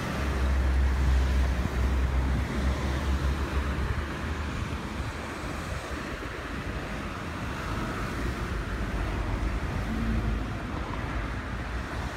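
Wind buffeting the microphone, strongest in the first few seconds and again near the end, over a steady outdoor hiss.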